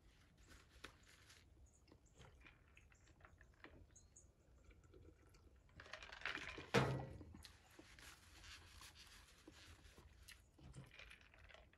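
Faint eating sounds: smoked rabbit being chewed and picked off the bone with the fingers, with small scattered clicks. About six seconds in comes a louder stretch of drinking from a plastic cup, ending in one sharp knock just before seven seconds.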